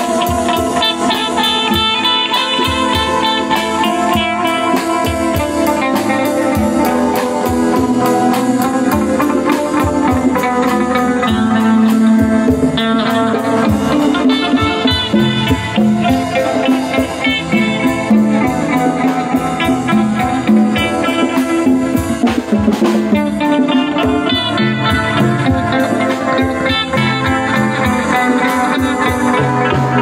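A small live band playing: a Fender Stratocaster electric guitar through an amplifier leads over a drum kit and congas, with continuous rhythmic percussion.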